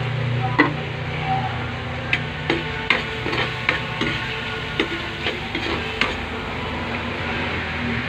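A metal spoon stirs onions and bell pepper in a black wok as they sizzle steadily, with a run of sharp clinks of the spoon against the wok from about half a second to six seconds in.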